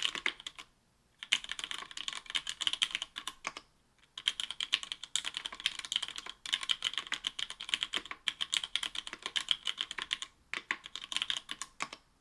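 Typing on an Octagon V3 mechanical keyboard with stock Cherry MX Black linear switches (60 g) in an aluminium plate, with GMK keycaps and lubed stabilizers: quick runs of keystrokes broken by brief pauses, stopping near the end.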